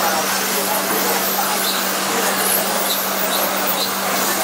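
Radio-controlled 1/10-scale electric touring cars racing on an asphalt track. Their motors and tyres make a steady, even noise, with a low steady hum underneath.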